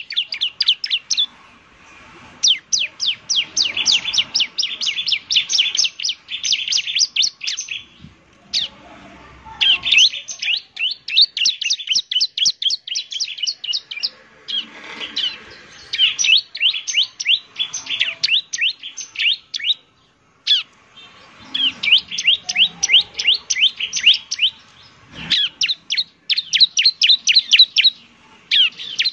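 Bar-winged prinia (ciblek) singing: fast runs of sharp chirps, about six a second, in phrases several seconds long separated by short pauses.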